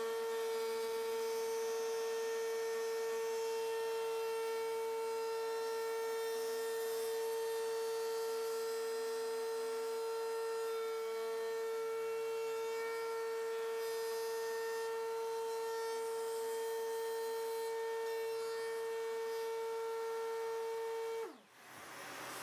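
Router motor in a router table running freely at a steady high speed, a constant whine; near the end its pitch drops sharply and the sound cuts out as it is switched off.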